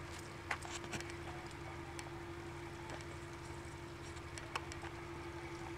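A steady low machine hum holding one constant tone, with a few light clicks and taps scattered through it.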